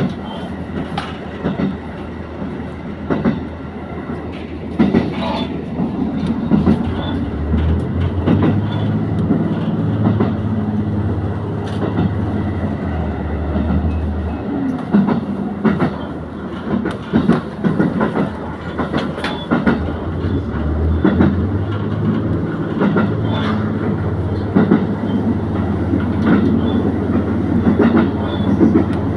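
Diesel train running along the line, with wheels clicking irregularly over the rails. A low engine drone rises and eases in a couple of long stretches.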